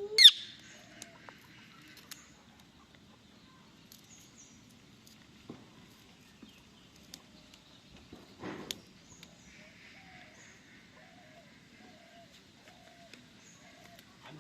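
Indian ringneck parrot giving one short, sharp screech that sweeps sharply upward in pitch at the start, then a few faint chirps and soft short notes. A brief rustle with a click comes about eight and a half seconds in.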